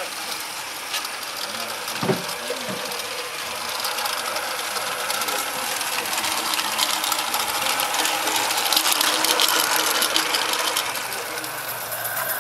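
Small 16mm-scale garden railway locomotive and train running on 32mm-gauge track: a fast mechanical clicking over a hiss, growing louder as it comes closer and dropping away near the end.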